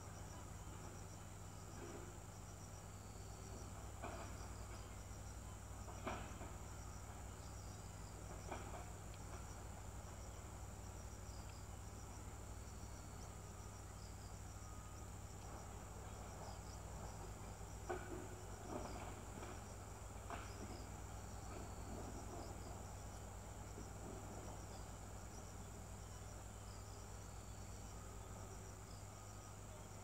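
Steady high-pitched trilling of crickets or other insects, over a low steady hum, with a handful of soft clicks scattered through.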